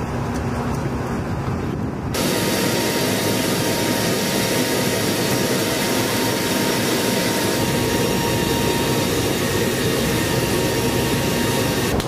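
Steady, loud engine and airflow noise heard from inside a military transport aircraft's cargo hold, with a few steady tones running through it; it comes in abruptly about two seconds in, after a lower rumble with wind outdoors on the flight line.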